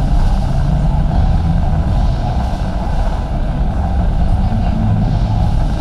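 Steady low rumble of shopping trolleys rolling over a concrete floor, with indistinct crowd noise.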